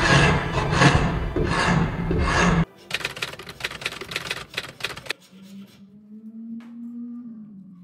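A hand rasp filed back and forth across the end of a wooden tenon to trim it to fit. First come about four long, loud strokes; then, after a sudden drop about two and a half seconds in, a run of quicker, lighter strokes that stops about five seconds in.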